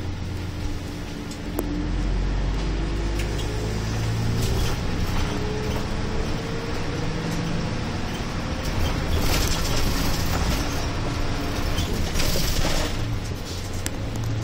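Route bus's engine heard from inside the cabin, pulling harder about a second and a half in with its note rising for a few seconds, then running on. Two short bursts of hiss come in the second half.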